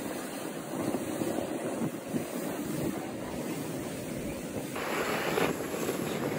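Snowboard sliding over packed snow, a steady rushing hiss, with wind noise on the microphone. The sound changes abruptly about five seconds in, briefly brighter.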